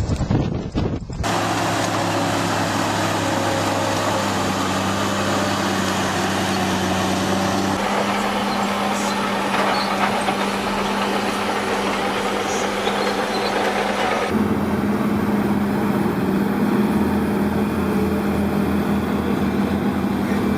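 Large diesel engines of heavy earthmoving machines running steadily under load, in several spliced clips: the engine note changes abruptly about a second in, near eight seconds and near fourteen seconds.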